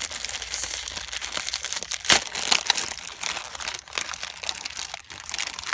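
Clear cellophane wrapper crinkling and crackling as fingers pull it open, with a sharp, louder crackle about two seconds in.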